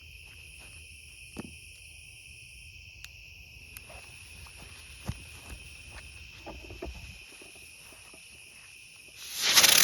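Crickets chirping in a steady chorus, with a few faint ticks. Near the end, an aerial spinner firework ignites with a sudden loud rushing hiss.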